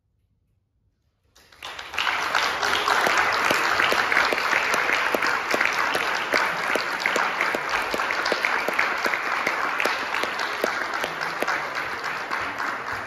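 Audience applause. It breaks out about a second and a half in after a brief near silence, reaches full strength quickly, and then slowly fades near the end.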